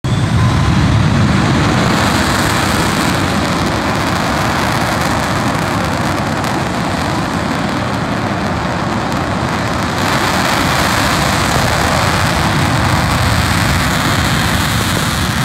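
Twin General Electric F404 turbofans of an F/A-18C Hornet fighter running: a loud, steady jet roar that grows a little louder about ten seconds in.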